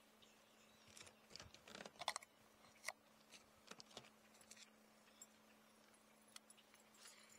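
Faint clicks, taps and light rattles of a fishing rod and reel being handled, bunched in the first half, over a faint low steady hum.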